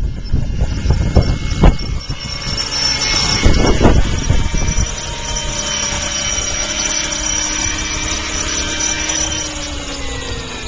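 Large electric-converted RC helicopter hovering low, its electric motor and spinning rotors giving a steady whine. Gusts of wind buffet the microphone in the first few seconds, and the whine drops in pitch near the end.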